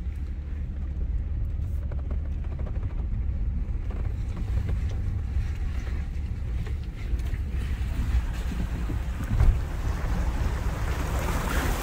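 A vehicle driving slowly through a shallow creek: a steady low engine and drivetrain rumble with water sloshing around the wheels. There is a single thump about two-thirds of the way through, and the splashing grows louder near the end.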